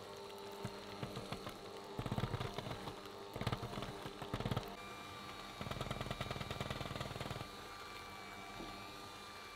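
KitchenAid electric hand mixer running, its twin beaters whipping vanilla butter cream in a glass bowl. The motor hums steadily, and the beaters rattle against the bowl in several louder stretches.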